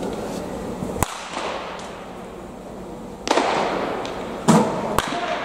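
Baseball bats cracking against balls in batting practice: four sharp hits, the loudest about four and a half seconds in, each echoing through a large indoor hall.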